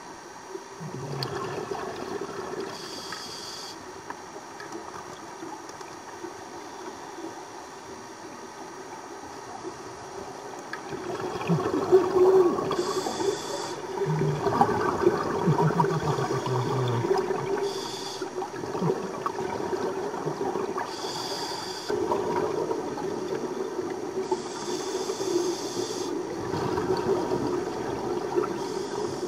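Scuba regulator breathing underwater: a hissing inhalation through the demand valve about every three to five seconds, alternating with the gurgle and rumble of exhaled bubbles. It grows louder about a third of the way through.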